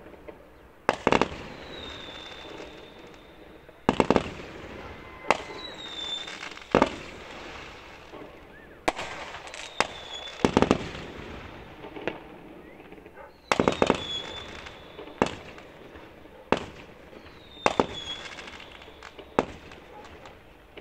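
Aerial fireworks shells bursting: about a dozen sharp bangs, one every second or two, each trailing off in an echo. A high steady tone lasting about a second follows several of the bangs.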